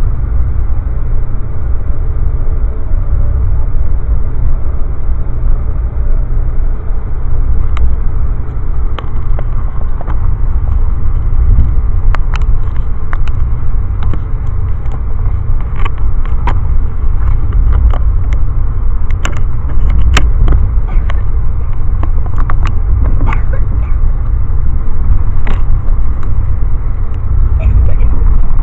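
Steady low rumble inside a moving Amtrak passenger car, with scattered sharp clicks and rattles starting about eight seconds in.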